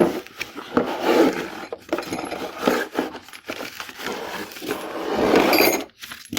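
Rustling of packaging and the knocking and clinking of parts being handled while a torch kit is unpacked, with many short clicks throughout and a denser rustle about five seconds in.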